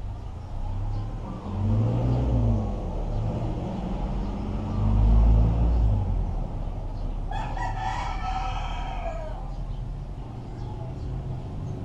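A rooster crows once, about seven seconds in, over a low rumble that swells about five seconds in.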